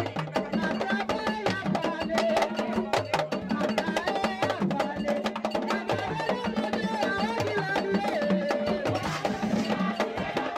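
Vodou ceremonial song: a group sings together over a repeating low drum beat and dense sharp clicking percussion.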